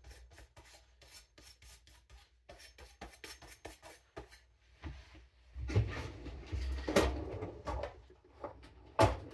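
Knife blade being stropped on a denim strop: quick, light strokes, several a second. About five seconds in it gives way to louder scraping and rustling, with a couple of sharp knocks.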